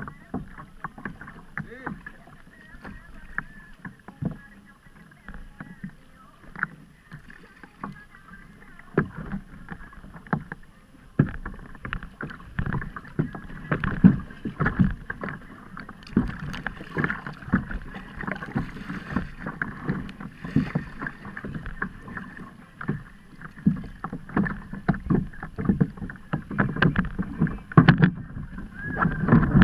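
Kayak on the sea: water slapping against the hull with many irregular knocks and bumps, busier in the second half.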